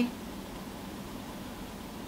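Steady room noise: an even hiss with a faint low hum underneath, no distinct knocks or clicks.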